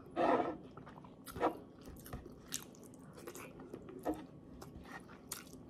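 A person chewing a mouthful of rice and stewed fish, with a short burst of noise at the start and wet mouth clicks scattered about once a second.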